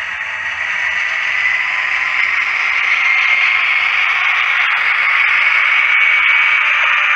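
HO scale model diesel locomotive running past on the track: a steady whirring hiss of motor and wheels with a faint high whine, growing louder as it comes close.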